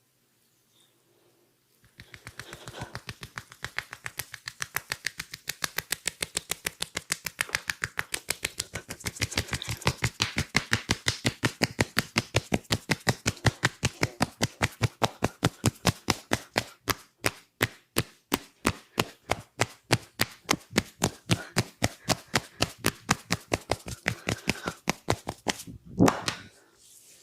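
A massage barber's hands striking the body in fast, even tapotement strokes, about four to five slaps a second, with one louder slap near the end.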